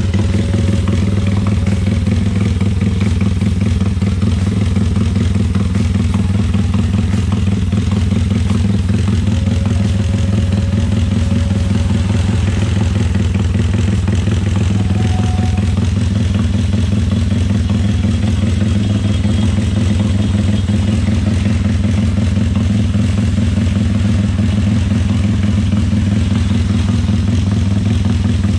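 Honda GL motorcycle's single-cylinder four-stroke engine idling steadily through a newly fitted aftermarket exhaust. It is being run to check the new exhaust for leaks, and the owner finds it does not leak.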